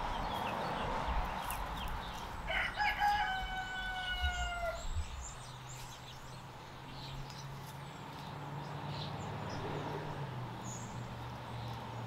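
A rooster crowing once, starting about two and a half seconds in: a few short notes, then a long, slightly falling final note. Before it, soft rustling of hands digging in loose soil, and from about halfway on a faint steady low hum.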